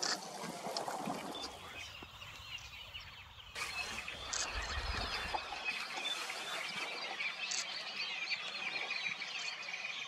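Many small birds chirping and calling over one another in a busy, continuous chorus. It starts abruptly about three and a half seconds in; before that there is only a low wind rumble with a few scattered chirps.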